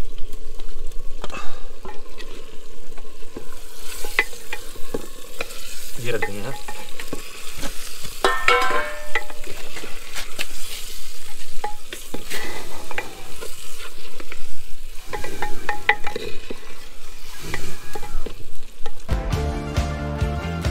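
A metal ladle stirring and scraping around the inside of an earthenware handi pot, with irregular clinks and scrapes, as chicken fries and sizzles in it. Background music comes in near the end.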